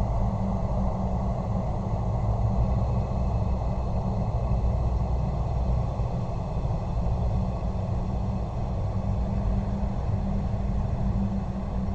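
Steady, low rumbling drone of a horror ambience soundscape, with a murky hiss layered above it and no sudden events.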